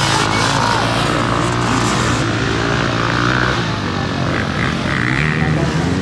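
Dirt bike engines revving, their pitch rising and falling, as a rider tries to power a bike stuck in deep mud free while its rear wheel spins and throws mud.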